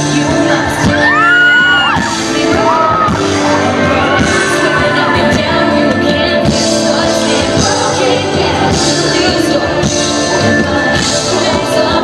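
A woman singing a pop ballad live, holding and sliding long notes over band accompaniment with a regular beat.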